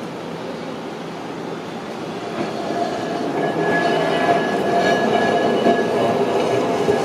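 Tram running on street tracks, growing louder from about two and a half seconds in, with a steady high whine joining it.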